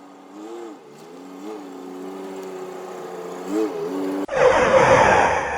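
An engine running with three brief revs. About four seconds in, an abrupt cut brings in a much louder harsh, rushing noise.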